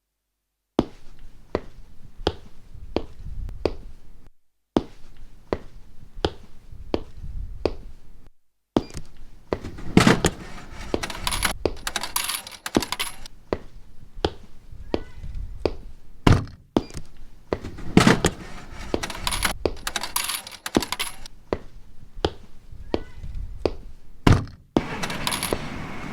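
A rhythmic beat built from sampled everyday sounds (clicks, knocks and clinks of small objects), sequenced on an Elektron Octatrack sampler. The pattern stops briefly twice and comes back with more layers and bright hissy hits, then near the end gives way to a steady noisy sound.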